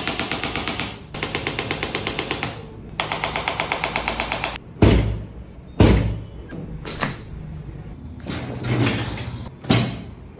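Electric chiropractic adjusting instrument firing rapid taps against the spine, about eight a second, in three runs of one to two seconds each. Then two loud thuds about a second apart as hands thrust down on the back, followed by softer knocks and a sharp knock near the end as the neck is adjusted.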